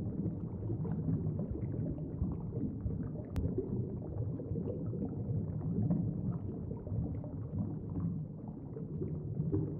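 Low, rumbling underwater-style bubbling sound effect, a steady churn without words or tune.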